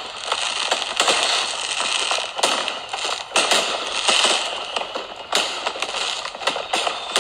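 Fireworks crackling: a dense, unbroken stream of sharp pops and crackles, with louder cracks standing out now and then and little deep booming.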